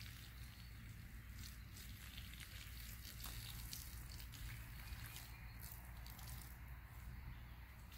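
A thin stream of liquid poured slowly from a cup, faintly trickling and dripping onto the ground.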